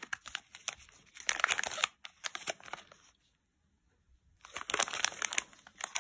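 Small plastic resealable bead bags crinkling as they are handled and turned over, loudest in the second second. The crinkling stops for about a second just past the middle, then starts again.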